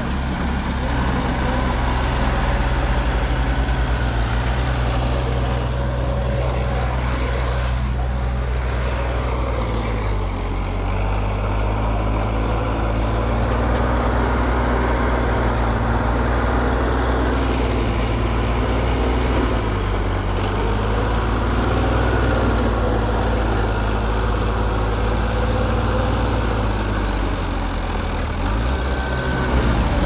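Heavy earthmoving machine's diesel engine running under load in a continuous low drone. Its pitch shifts a few times as the engine works harder and eases off, with a faint steady high whine above it.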